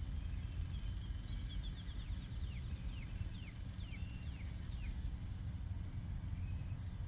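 An unidentified animal giving a run of short, high calls that each fall in pitch. They come close together at first, then spread out to about two a second, and stop about five seconds in. A steady low rumble runs underneath.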